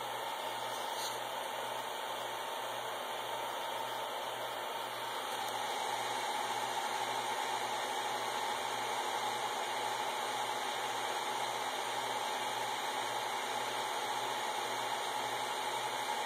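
Small 40 mm cooling fans running at full power, driven by a temperature controller: a steady rush of air with a faint steady whine.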